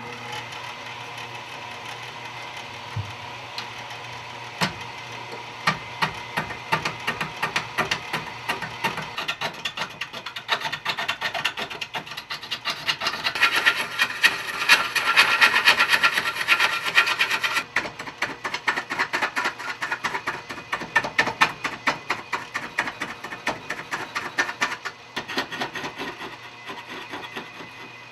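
Wood lathe running while a bowl gouge cuts a spinning cherry bowl blank. There is a steady low motor hum under a rapid, dry chatter of the tool against the wood. The cutting gets loudest in the middle, then drops back suddenly and carries on more lightly.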